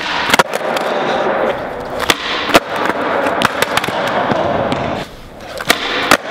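Skateboard with one truck mounted backwards rolling on a smooth concrete floor, its wheels making a steady rumble. It is broken by several sharp cracks of the tail popping and the board slapping down on landings, about twice near the start, twice around the middle and twice near the end.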